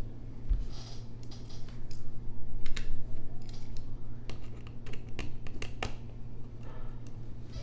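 Small metal clicks and brief scratching as a tri-point screwdriver undoes the tiny screws of an iPhone X's LCD and battery shield, over a steady low hum.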